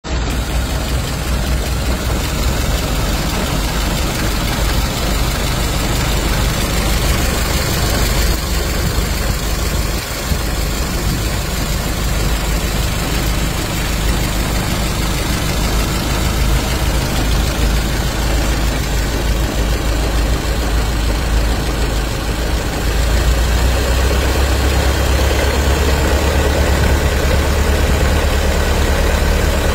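Ford Model TT's four-cylinder engine running steadily, its low sound getting a little louder about three-quarters of the way through.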